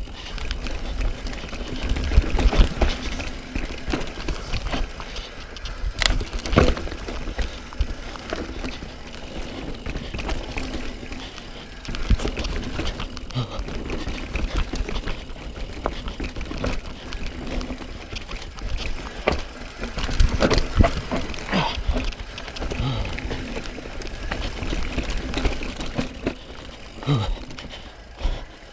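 Downhill mountain bike riding fast over a rough dirt trail: tyres rolling on dirt and roots with a steady rumble, and the frame, chain and suspension knocking and rattling over the bumps and jumps, many sharp clacks scattered throughout.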